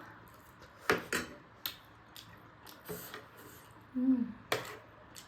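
Cutlery clicking and clinking against a plate and bowl during eating: about half a dozen separate light clicks, with a short hum a little after four seconds.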